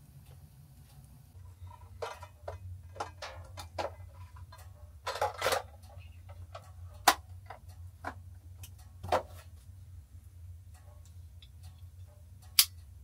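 Irregular clicks and light knocks of small wooden and metal parts being handled and fitted together by hand, a few of them sharp, over a steady low hum.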